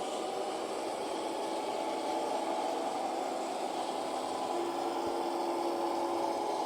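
HO scale model diesel locomotive's sound decoder playing a diesel engine sound through its small onboard speaker, steady, with a held tone coming in for about a second around four and a half seconds in.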